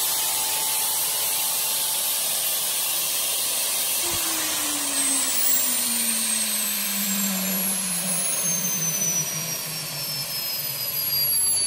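Garrett GTP30 gas turbine auxiliary power unit running with a high whine over a steady rush of air. About four seconds in there is a click, and then the whine falls steadily in pitch as the turbine spins down.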